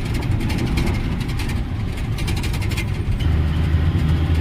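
A heavy goods truck's diesel engine running on the move, heard from inside the cab. About three seconds in, its steady drone drops lower and grows louder.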